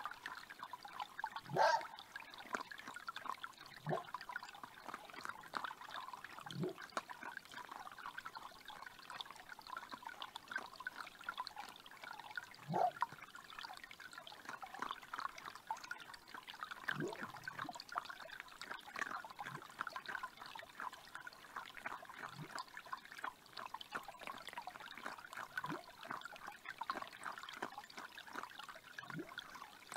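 Forest creek trickling steadily, with about ten short, sharp calls from an unseen red fox at irregular intervals, every few seconds: its protest at being driven off its feeding spot by raccoon dogs.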